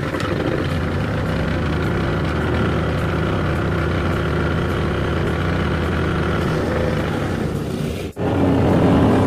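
Single-cylinder petrol engine of a walk-behind rotary lawn mower catching just after a pull of the recoil starter, then running steadily. It cuts out briefly about eight seconds in and comes back louder.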